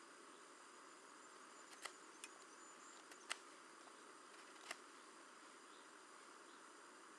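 Near silence: a faint steady hiss with a handful of sharp clicks or snaps, the loudest about three seconds in.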